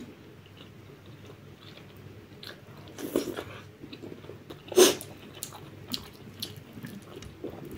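Close-up mouth sounds of chewing soft, chewy laphing noodles: wet clicks and smacks, with louder smacks about three seconds in and, loudest, about five seconds in.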